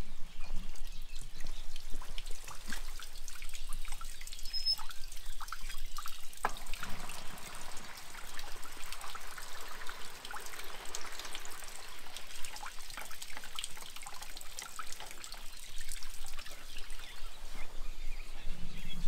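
Soak water draining out of a trailer load of rice seed through a bottom outlet valve and hose, trickling and splashing onto the ground as the seed is drained after its soak.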